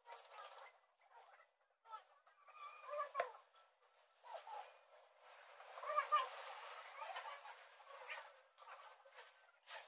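Thin plastic bag crinkling and rustling in irregular bursts as raw shrimp are picked out of it by hand. Faint bird-like calls sound in the background, loudest about three and six seconds in.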